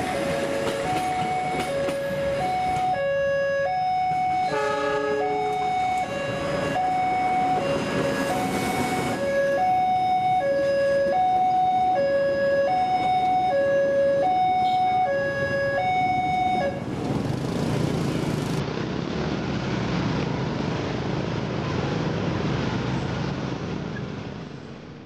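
Two-tone siren alternating between a high and a low note, each held about three quarters of a second, which cuts off about 17 seconds in. The steady rush of street traffic follows and fades out at the end.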